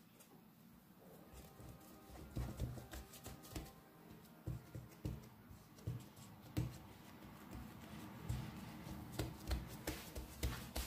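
Hands patting and pressing the raw dough lid of a stuffed pie in a frying pan to seal it: soft, irregular thuds about one or two a second. Faint background music underneath.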